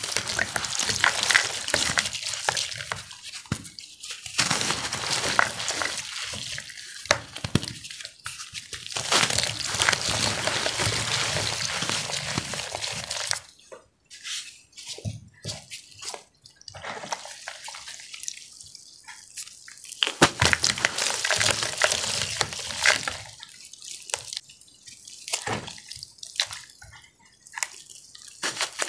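Hands crushing and squeezing soft, wet cornstarch chalk dipped in blue iron-oxide paste in a basin of water: wet crumbling, crackling and dripping. It is loudest through the first half, drops to scattered crackles for a while, and comes back loud about two-thirds in.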